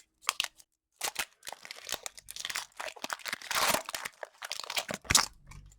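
Foil wrapper of a Pokémon card booster pack crinkling and tearing as it is opened, in irregular crackling rustles, loudest a little past halfway.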